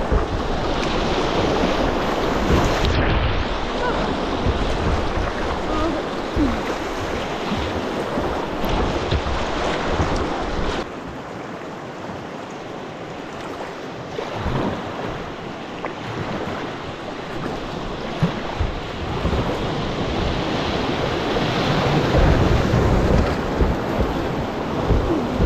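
River rapids rushing around a kayak's bow: a steady hiss of whitewater with wind buffeting the microphone. It eases a little through a calmer stretch in the middle and builds again near the end as the kayak runs into more whitewater.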